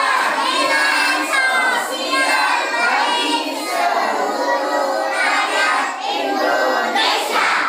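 Group of young children and women singing a song together, steadily, until the singing stops near the end.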